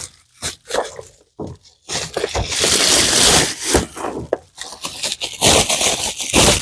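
Plastic packaging crinkling and crackling loudly close to the microphone as a parcel is unwrapped, in irregular bursts that grow denser and louder after about two seconds.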